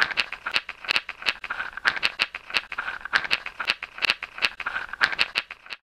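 Rapid, irregular rattle of hard clicks: several loud clicks a second over a denser clatter, stopping suddenly near the end.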